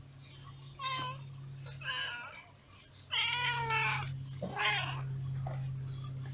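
Cat meowing: four meows, the third the longest and loudest.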